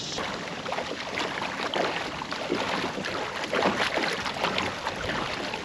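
Water splashing and rushing along the hull of a kayak under way, an irregular mix of splashes with no break.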